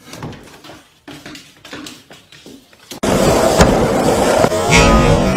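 Scattered light knocks and clicks, then about three seconds in a sudden cut to loud background music.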